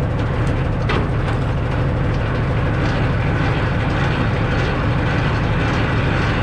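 Semi truck's diesel engine idling steadily, a low even drone, with a few faint clicks from the trailer's landing-gear crank being wound up.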